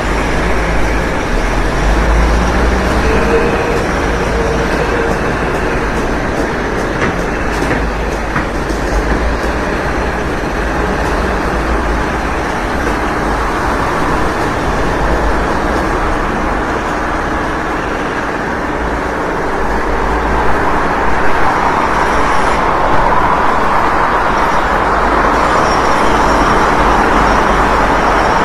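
Loud, steady construction and heavy-vehicle din with a deep low rumble, growing a little louder after about twenty seconds.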